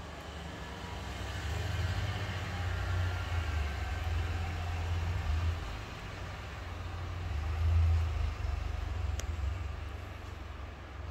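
A small dog gnawing and crunching a dried duck bone, over a low rumble that swells and is loudest about eight seconds in; one sharp click about nine seconds in.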